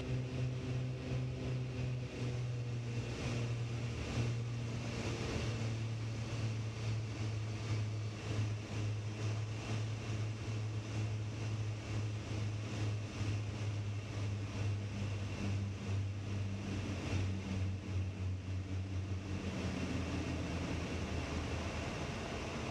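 Cockpit sound of a Beechcraft Baron B55's twin newly installed Continental piston engines and propellers with power coming back for landing: a steady drone that sinks a little in pitch. About 20 s in a wider rushing noise joins it as the plane rolls down the runway.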